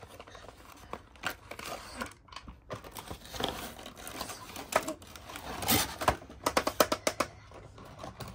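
Cardboard toy packaging being handled: scraping and rustling of the card with scattered small clicks and taps as twist ties and the clear plastic blister are worked free. There is a quick run of ticks near the end.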